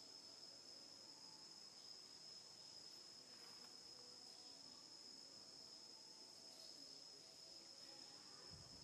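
Faint, steady, high-pitched insect drone: one shrill, unbroken tone that holds level throughout. A brief low rumble comes just before the end.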